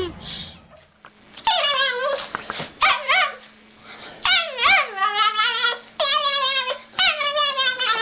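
A dog making a string of long, pitched, whining calls that rise and fall in pitch, one after another, over a faint steady hum.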